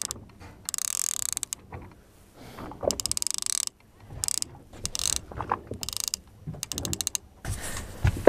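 Small multiplier boat-fishing reel ratchet clicking in several short bursts of rapid clicks with pauses between, as the reel is worked by hand.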